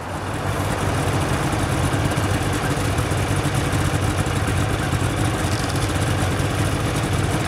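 Snowmobile engine running steadily at low revs, a constant low hum with no change in pitch.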